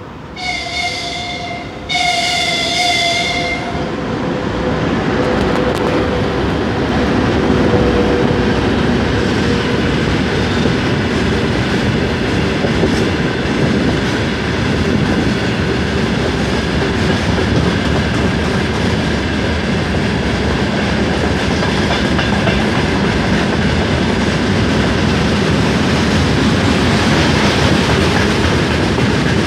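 Freight locomotive sounding its horn in two blasts, the second longer, then a long freight train of tank wagons and container wagons rolling past with a steady rumble and clatter of wheels.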